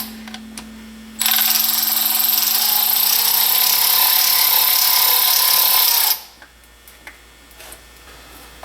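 Handheld power tool running steadily for about five seconds, starting about a second in and cutting off suddenly.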